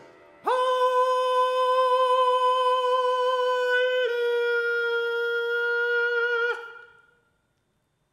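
A countertenor singing one long held note, about six seconds, that drops slightly in pitch about four seconds in, then stops with a short reverberant tail.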